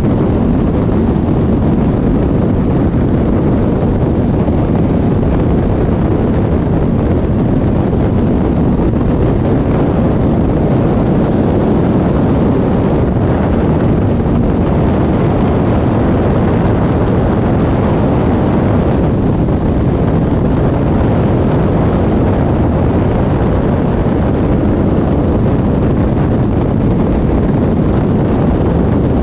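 Caterham 420R's 2.0-litre Ford Duratec four-cylinder engine running hard at racing speed, heard from the open cockpit. Heavy wind rush over the camera microphone mixes with it, loud and steady throughout.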